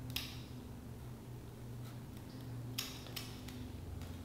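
A few faint snips of small scissors cutting wig lace at the hairline: one at the start and two close together near the end, over a low steady hum.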